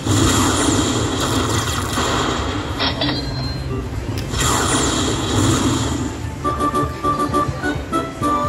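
Lightning Link slot machine bonus sound effects: two rushing lightning-strike effects as the win total jumps, then from about six seconds in a quick run of short chiming tones as the win meter counts up.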